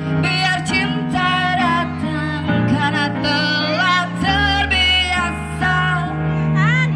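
A song with a woman singing over plucked-string and bass accompaniment.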